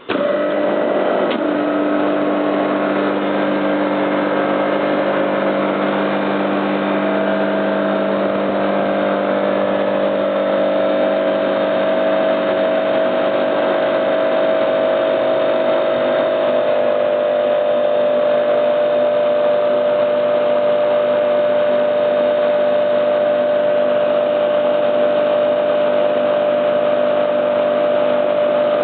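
Homemade air compressor built from two three-phase air-conditioner compressors switching on abruptly and running with a steady hum of several constant tones.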